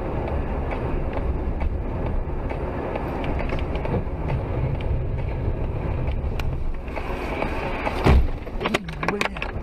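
Steady road rumble of a vehicle driving, as picked up by a dashcam. About eight seconds in there is a single loud bang of a collision, followed by a few short clatters.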